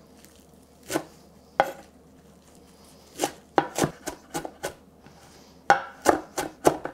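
Chef's knife chopping fresh herbs on a wooden cutting board: two separate strikes, then runs of quicker chops, about four a second near the end.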